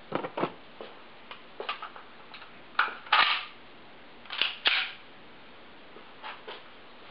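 Taurus PT92 pistol being handled: about eight sharp metallic clicks and clacks, several in close pairs, the loudest about three seconds in.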